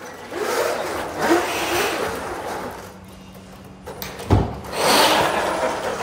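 FRC competition robot's mechanisms running: motors whirring with a steady low hum in the middle, then a sharp clunk a little past four seconds in, followed by louder whirring.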